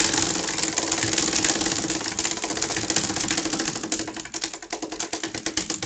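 Prize wheel spinning: a rapid run of ticks that gradually slows as the wheel coasts toward a stop.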